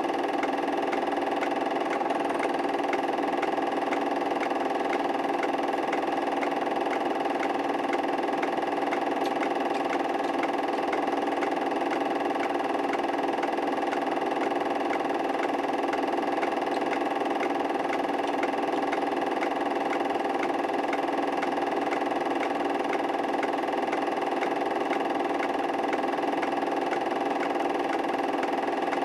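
Steady machine hum, unchanging in level and pitch, with faint regular ticks.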